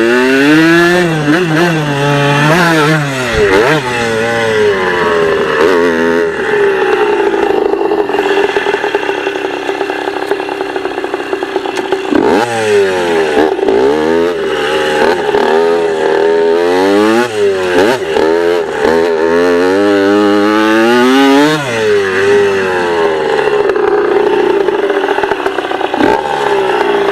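Dirt bike engine revving up and down over and over as it is ridden, holding a steady pitch for several seconds in the middle before a run of quick rises and falls.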